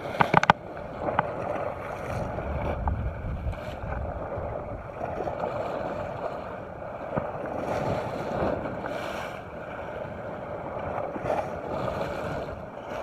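Sea waves washing and splashing against a rocky shore, with wind on the microphone, a steady rushing that swells and eases. A few sharp knocks right at the start.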